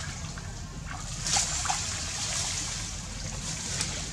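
Water splashing and trickling as macaques move through shallow floodwater, with a louder splash about a second in.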